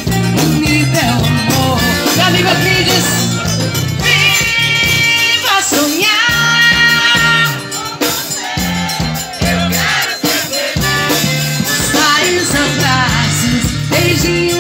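Live forró band playing an instrumental break: piano accordion carrying the melody over a repeating bass line and drum kit keeping a steady dance beat.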